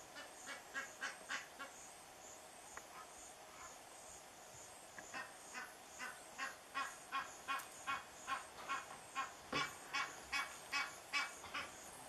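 Egyptian goose giving runs of rhythmic honking calls, about three a second. A short run comes at the start, then a longer run from about five seconds in that grows louder.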